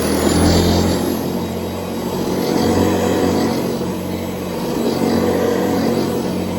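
Vintage Hoover Convertible upright vacuum cleaner running steadily on test after servicing, its motor and fan humming with slight swells in loudness.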